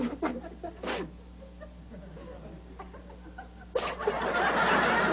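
Studio audience laughing. The laughter dies down to scattered chuckles after about a second, then breaks out again loudly just before four seconds in.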